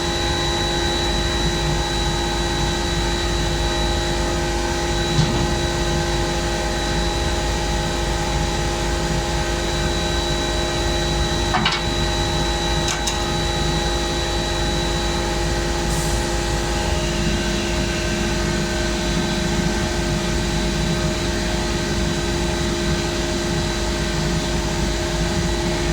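Atlas Copco GA47 rotary screw air compressor running steadily, a constant drone with a steady hum and whine. There are a couple of brief clicks about halfway through.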